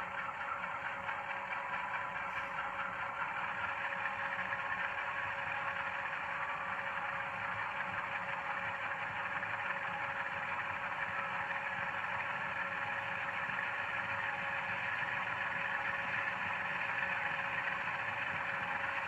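Loksound 5 DCC sound decoder in an HO scale GE Dash9-44CW model, playing a running GE diesel engine through the model's small speaker: a steady hum with a constant tone, growing slightly louder over the first few seconds.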